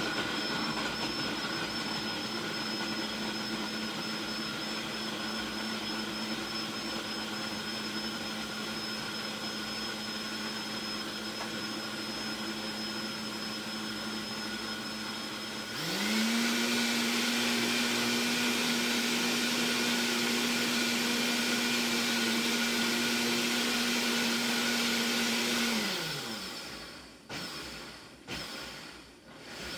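Countertop blender motor running as it blends a drink. It switches to a higher, louder speed about halfway through and winds down near the end. Two short pulses follow before it starts up again.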